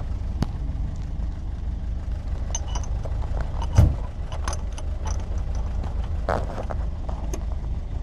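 Vehicle engine idling with a steady low rumble, with scattered light metallic clinks as a steel tow shackle is handled. There is one louder thump just before the middle.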